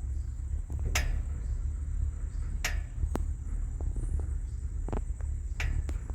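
Wind rumbling on the microphone, with a steady thin high whine and about six sharp clicks or knocks scattered through it.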